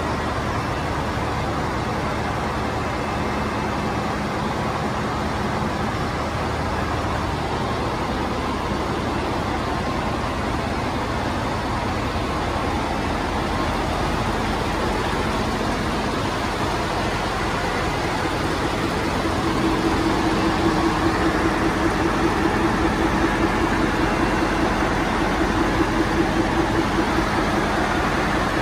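Running diesel engine in a ship's engine room: a steady, loud machinery din, with a pulsing hum that comes up louder about two-thirds of the way through.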